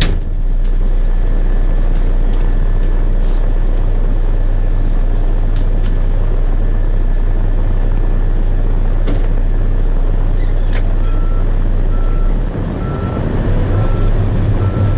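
Bulldozer's diesel engine running steadily under load. About eleven seconds in, its backup alarm starts beeping about once a second as the machine goes into reverse, and the engine note changes soon after.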